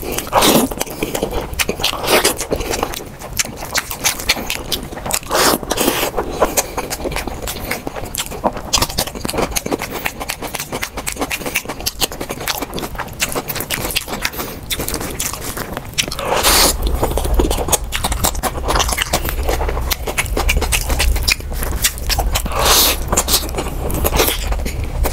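Close-miked eating by hand: fingers mixing and scooping saucy rice and curry, then chewing mouthfuls, with many small wet clicks and mouth noises. A steady low hum comes in about two-thirds of the way through.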